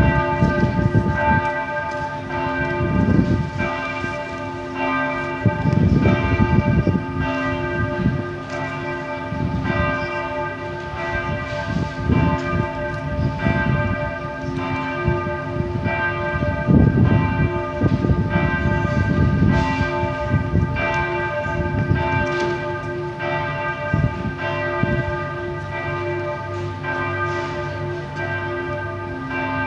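The church bells of Berlin Cathedral ringing a full peal: several swinging bells strike over and over, and their tones overlap into a continuous ringing hum. Irregular low rumbles come and go underneath, loudest about 3, 6 and 17 seconds in.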